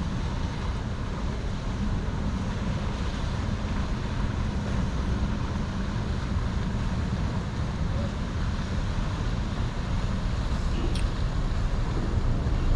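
Wind buffeting the microphone over a steady low engine rumble.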